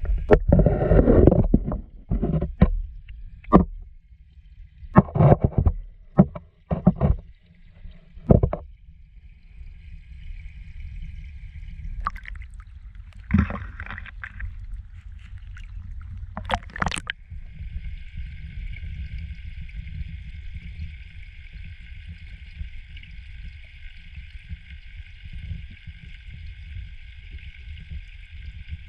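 Muffled underwater sound of a camera in a waterproof housing submerged in a pond: a steady low rumble with a faint high hum, and a run of knocks and bumps against the housing in the first nine seconds, then two more near the middle.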